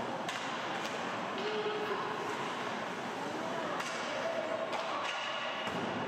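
Ice hockey play in a rink: several sharp clacks of sticks and puck over a steady rink hum, with faint shouting voices.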